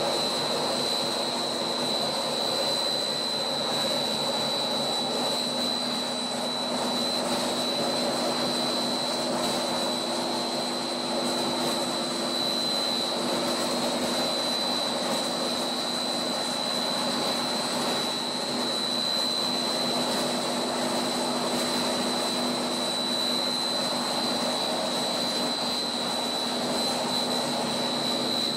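Monolayer blown-film extrusion line running steadily: an even machine hum and rushing air, with a constant high whine over it.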